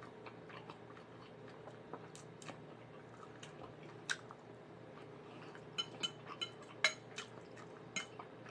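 Quiet eating sounds: chewing, with light clicks and clinks of a metal fork against a dinner plate. The sharpest clink is about four seconds in, and a quick cluster of clicks follows between about six and seven seconds.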